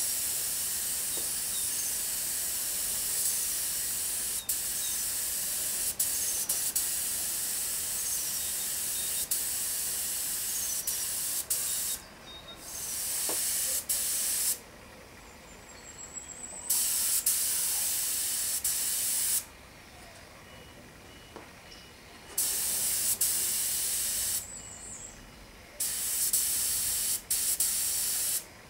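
Spray hissing steadily, a high hiss that cuts off about twelve seconds in and then starts and stops several more times in long bursts, with a few faint clicks between.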